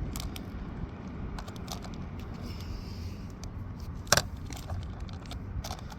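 Small clicks and scrapes of hands working the speed logger out of the RC boat's hull, with one sharp click about four seconds in, over a steady low rumble.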